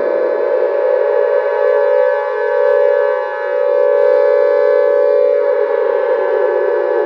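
Great Mother Megaphone creature sound effect: a loud, sustained siren-like blare made of many stacked steady tones, its lowest part slowly sinking in pitch in the second half.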